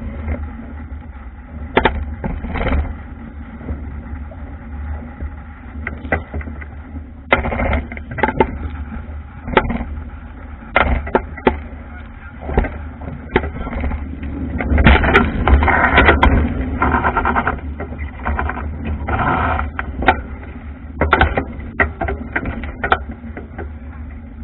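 Wooden Albacore dinghy sailing hard through choppy water: wind rumbling on the boat-mounted camera's microphone, with irregular sharp knocks and splashes as the hull slaps into waves and spray comes over the bow, and a louder rush of water about fifteen to seventeen seconds in.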